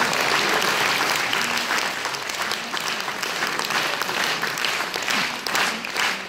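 Concert audience applauding. Near the end the clapping falls into a steady beat, clapping in time.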